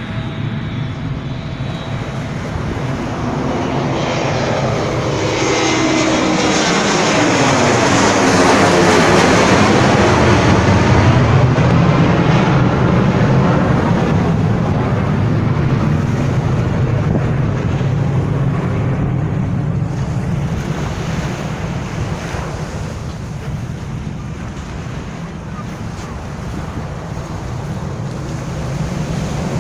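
Airliner flying low overhead on its landing approach: the engine roar builds, peaks about ten seconds in with a sweeping whoosh as it passes, then settles into a fading low rumble.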